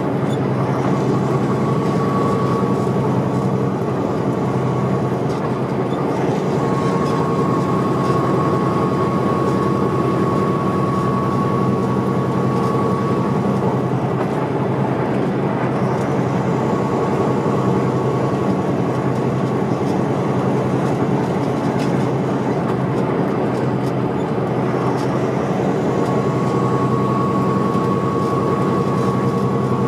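Semi-truck diesel engine and road noise heard from inside the cab while cruising steadily at highway speed: a constant low drone, with a faint high whine that comes and goes.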